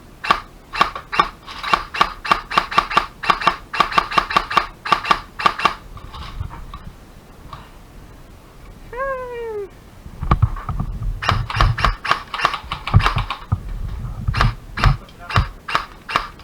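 Airsoft gun firing runs of sharp, rapid shots, about four to five a second, which stop briefly and then start again. About nine seconds in there is one short falling wail, and heavy low rumbling from movement on the microphone comes with the second run of shots.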